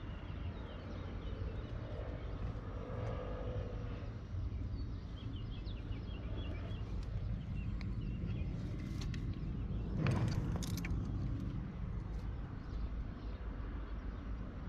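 Outdoor background: a steady low rumble with faint bird chirps. There is a short rustling burst a little after ten seconds in.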